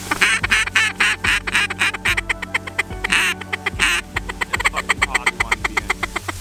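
Hand-blown mallard duck calls sounding a fast, chattering run of quacks, with a short pause about halfway, worked at a flock of ducks in flight.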